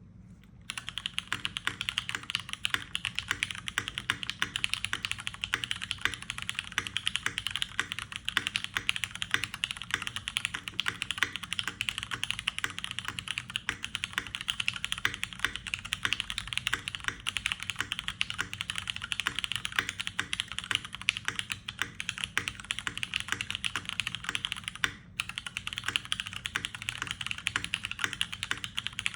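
Continuous fast typing on a UTD 360C mechanical keyboard with Cherry MX Brown switches: a dense stream of keystroke clicks that starts under a second in, with a brief pause about 25 seconds in.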